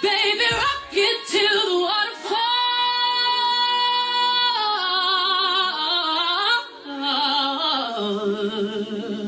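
A woman singing solo. She holds one long, steady high note for about two seconds in the middle, then sings runs with vibrato that step down in pitch toward the end.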